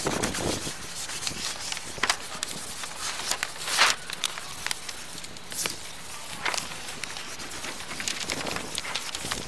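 Pen and marker strokes scratching on paper, with rustling and small knocks from the sheet being handled; the strongest stroke comes about four seconds in.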